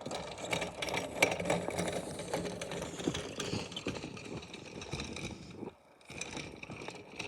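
Engine of a snow-ploughing vehicle running, with rattling and knocks from the plough gear and a sharp knock about a second in. The sound drops away briefly a little before the end.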